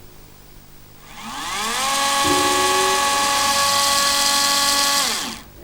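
Electric power tool motor, such as a drill, spinning up to speed with a rising whine, running steadily for about three seconds, then winding down and stopping.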